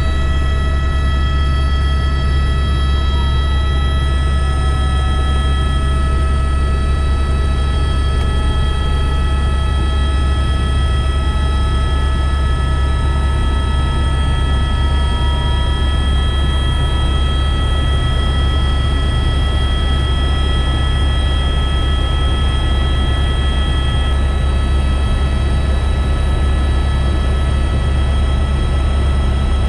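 Turbine helicopter heard from inside the cabin in steady flight: a loud, deep, constant rumble from the rotor and engine with several steady high-pitched whine tones above it.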